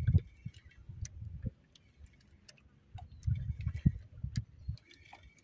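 Spinning reel being cranked, giving scattered light clicks and ticks while the rod bends under load. Low rumbling comes and goes underneath, loudest about three to five seconds in.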